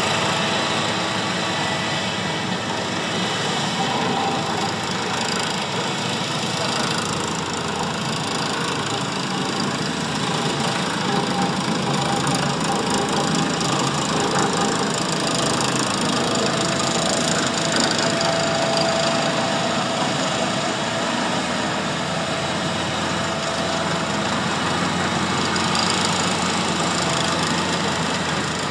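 Diesel engines of heavy earthmoving machines running steadily: a Bomag single-drum soil compactor and a wheeled scraper working the dirt.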